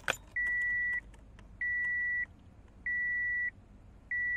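A car's dashboard warning chime beeps four times, each a steady high-pitched tone about half a second long, evenly spaced a little over a second apart, after a short click at the start as the ignition key turns.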